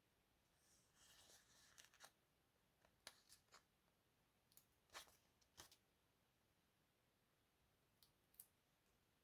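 Faint desk crafting sounds: a short rustle of paper, then scattered light clicks and taps, a few close together and a pair near the end.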